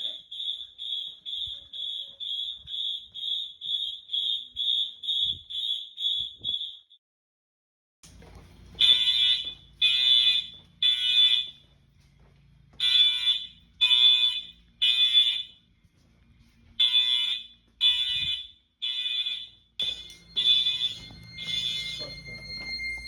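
Fire alarm horns sounding during a system test. First comes a fast, high beeping of about two and a half beeps a second, which stops about seven seconds in. After a brief gap, horns sound in the temporal-three evacuation pattern: three blasts about a second apart, then a pause, repeated. Near the end several horns overlap.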